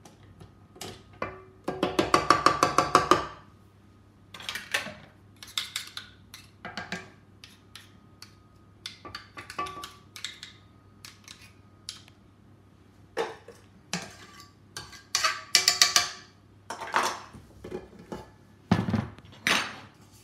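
Spatula and stand-mixer beater clinking and scraping against a stainless steel mixing bowl as cake batter is scraped off. Two fast runs of ringing metal clinks, about two seconds in and again about fifteen seconds in, with scattered taps and scrapes between.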